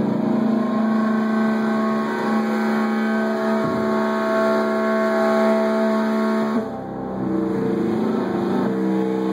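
Distorted electric guitar holding a droning chord with no drums, the sustained notes ringing steadily and changing pitch about two-thirds of the way in.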